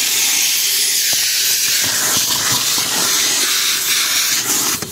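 Car wash vacuum hose running with a steady, loud suction hiss as its nozzle is worked over the car's interior, with a few light knocks of the nozzle near the end.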